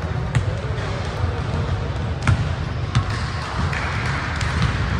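A soccer ball kicked and bouncing on a hard indoor court: a few sharp knocks, the loudest about two seconds in, over a steady low rumble of the large sports hall.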